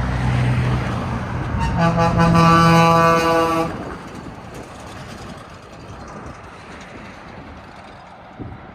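A passing truck's engine fades, then an air horn sounds for about two seconds and cuts off, leaving road and wind noise.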